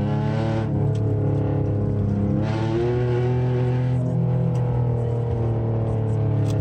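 Car engine heard from inside the cabin, driven hard and revving. Its pitch climbs sharply about half a second in and again around two and a half seconds, between steadier stretches at high revs.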